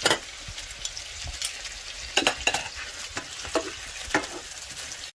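Raw chicken and gizzard pieces sizzling in a frying pan as they are stirred and turned, first with tongs and then with a wooden spatula. A few scrapes and clicks of the utensil against the pan come through the sizzle, most around two seconds in and again near the end.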